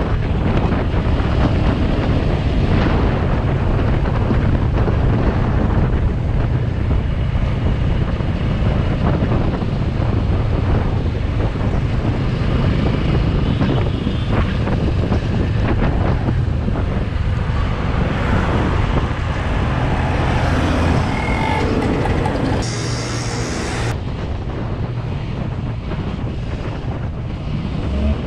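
Motorcycle running at road speed, engine noise mixed with heavy wind rush on the camera microphone.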